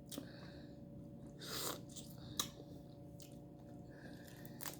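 Close-up chewing of shrimp: soft, wet mouth sounds with a few small clicks and a brief louder noise about a second and a half in.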